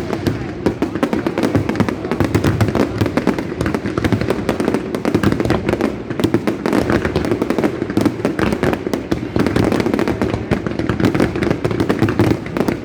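Fireworks display going off continuously: a dense, unbroken run of bangs and crackles.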